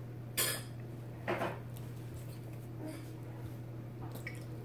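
Metal spoons scraping into a tub of ice cream, two short scrapes about a second apart, over a steady low hum.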